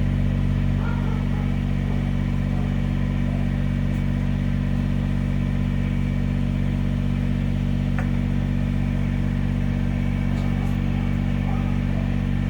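An engine running steadily at constant speed: a low, even drone with no change in pitch. A faint click sounds about eight seconds in.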